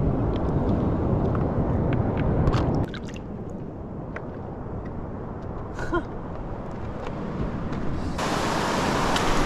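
Footsteps on wet reef rock with wind buffeting the microphone, loudest in the first three seconds. About eight seconds in, the steady hiss of ocean surf comes up suddenly.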